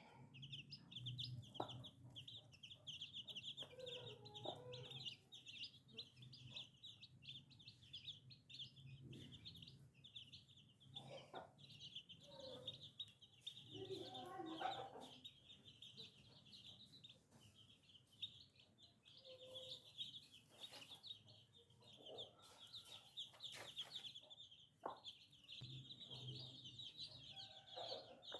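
Baby chicks peeping in a faint, continuous chorus of rapid high-pitched peeps, with a hen's lower clucks breaking in now and then.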